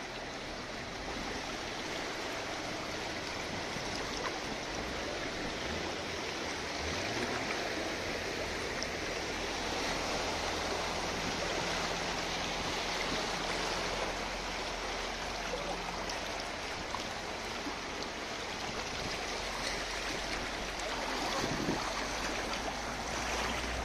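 Floodwater rushing steadily through a street, with a low engine hum underneath.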